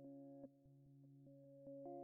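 Quiet background music of soft, pure synthesizer tones: a low held note under upper notes that change about every half second.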